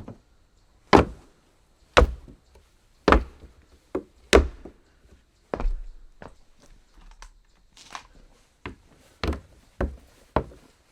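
Footsteps on a wooden floor. Four heavy steps come about a second apart, then lighter, quicker and more uneven steps follow in the second half.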